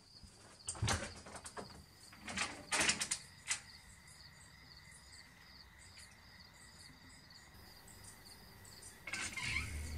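A house front door being unlatched and pulled open: several clicks and knocks in the first few seconds, with crickets chirping steadily behind. A low drone comes in near the end.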